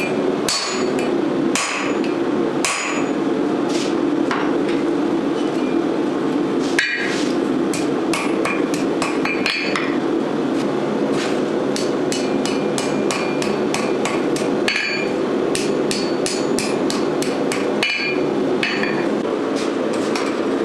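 Blacksmith's hammer striking hot steel on an anvil, with a metallic ring after each blow. The blows come in uneven runs, some quick series of lighter taps, over a steady hum.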